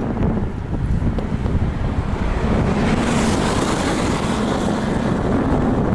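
Heavy wind buffeting on the microphone of a moving bicycle's camera. About three seconds in, a car overtaking close by adds a swelling tyre hiss that fades again.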